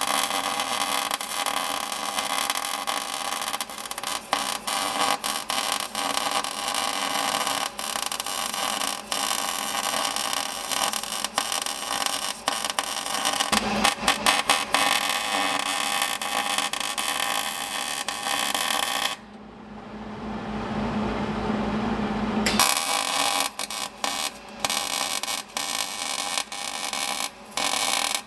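Electric arc welder crackling steadily as the spider gears of an open rear differential are welded solid. The arc stops about nineteen seconds in and starts again a few seconds later, running in shorter, broken stretches near the end.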